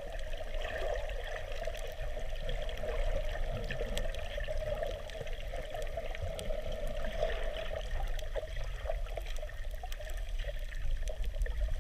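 Muffled underwater water noise picked up through a camera's waterproof housing: a steady rushing hiss with a low rumble and scattered faint clicks.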